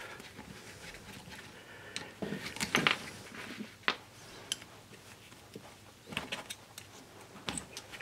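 Small steel bolts being undone from the cast-iron pump section of an air-conditioner rotary compressor with a nut driver and dropped onto the workbench: scattered light metallic clicks and clinks, busiest a couple of seconds in.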